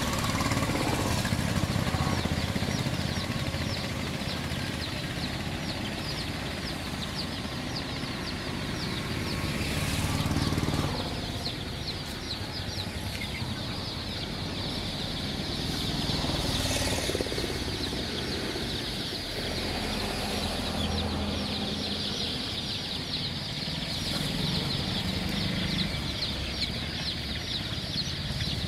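A large flock of young chicks peeping continuously, many high cheeps overlapping into a dense chorus.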